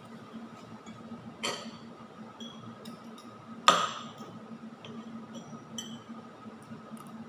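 Metal fork and spoon clinking and tapping against a dish while eating: a series of light ticks, with one sharp, louder clink about halfway through.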